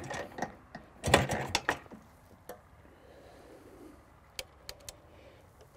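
A brief clatter about a second in, then a few light, sharp mechanical clicks: handling noise from a classic two-stroke motorcycle being readied to start, its engine not yet running.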